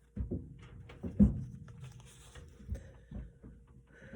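A few soft thumps and knocks of things being handled on a table, the loudest about a second in, with small clicks and a faint rustle between.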